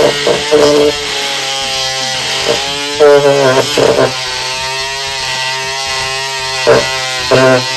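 Ryobi 18-volt oscillating multi-tool running with a steady buzz while its blade cuts through a drywall screw, with several short louder grinding bursts as the blade bites into the metal.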